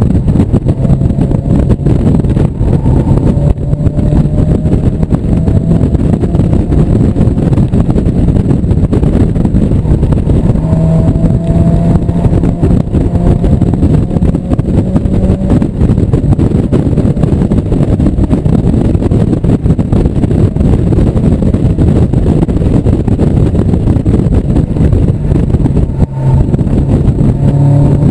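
A 1997 Mazda Miata's four-cylinder engine running hard at track speed, heard from the open cockpit under heavy wind rush. Its pitch climbs slowly three times as the car accelerates: a few seconds in, from about ten seconds in, and near the end.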